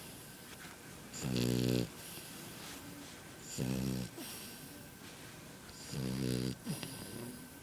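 French bulldog puppy snoring: three snores about two seconds apart, each lasting about half a second.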